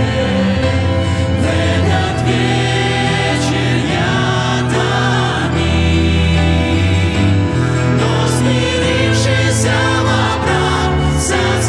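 Mixed male and female vocal group singing a Russian-language hymn in harmony, accompanied by violin, double bass, acoustic guitar and keyboard.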